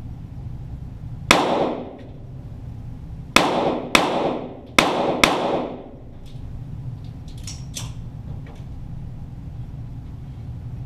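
Five shots from .22 rimfire Walther GSP target pistols, heard from near the target, each a sharp crack with a short echoing tail. One shot comes first, then four more follow about two seconds later at roughly two a second. A few faint clicks come after.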